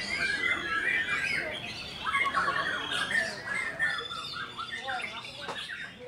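Caged songbirds singing all at once in a dense chorus of quick whistles, trills and chatter, among them a white-rumped shama (murai batu). The chorus gets somewhat quieter toward the end.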